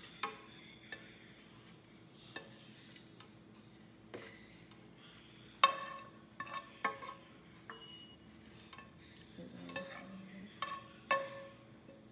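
Spatula scraping and tapping against a frying pan as cooked coconut and spice mixture is knocked into a blender jar: scattered sharp clicks and knocks at irregular moments, the loudest about halfway through.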